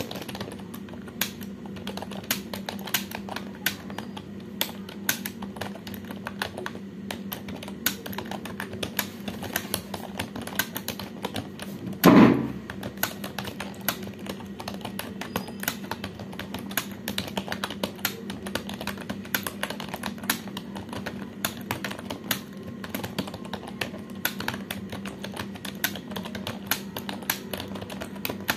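Fast, continuous typing on a computer keyboard, several keystrokes a second, over a steady low hum. About halfway through there is one louder thump.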